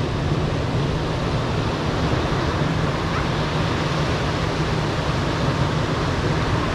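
Ocean surf breaking and washing up a sandy beach: a steady, even wash of noise, heaviest in the low end.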